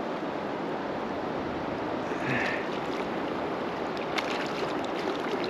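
Shallow river current rushing and rippling steadily close to the microphone, with a few faint ticks about four seconds in.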